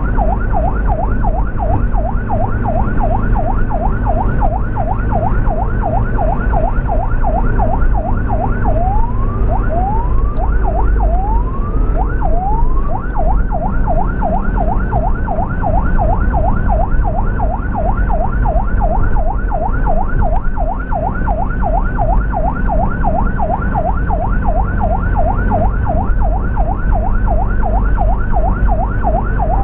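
Ambulance electronic siren in a fast yelp, about three rising sweeps a second. It slows to about one sweep a second for four sweeps near the middle, then returns to the fast yelp, over a steady vehicle engine and road rumble.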